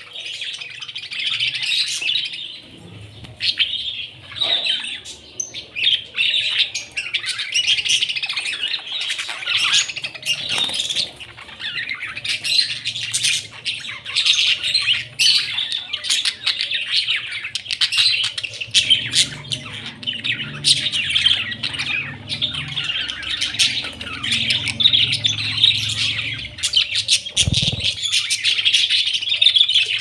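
A flock of budgerigars chattering continuously, a dense mix of warbling chirps and harsher squawks.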